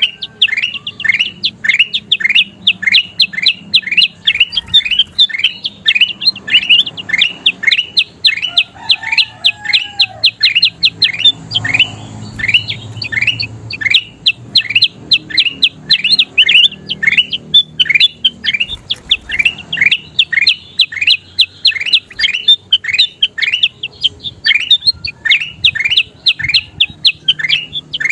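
A kutilang emas, a bulbul, singing a fast, steady string of short chirps, each dropping sharply in pitch, about three a second with barely a pause.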